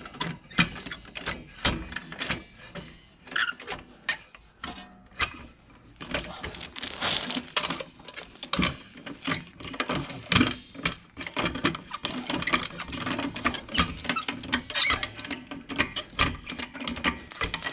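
Irregular metallic clicks, knocks and scraping of hand tools and rear suspension parts being worked while the suspension is lifted to seat a new lowering spring.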